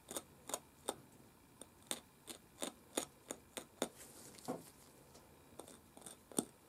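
Faint, sharp ticks of a small pointed knife making short slicing cuts as it skins thin hide away from an animal's ear cartilage, two or three a second at an uneven pace, thinning out past the middle.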